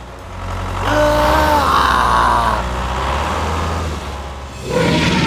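Vehicle engine running with a steady low rumble. About a second in comes a pitched sound with overtones, lasting under a second, and a rougher, louder noise sets in near the end.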